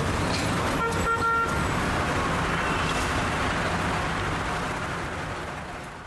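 Road traffic din from a jam of cars and buses, with a car horn sounding briefly about a second in. The sound fades out near the end.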